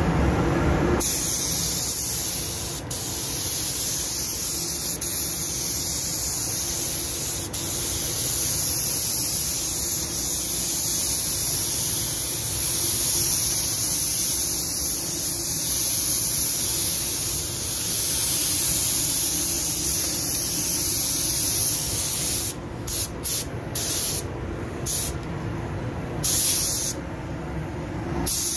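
Compressed-air paint spray gun spraying clearcoat: a loud, steady hiss of air and atomised lacquer that starts abruptly, then breaks into short on-off bursts as the trigger is pulled and released in the last several seconds.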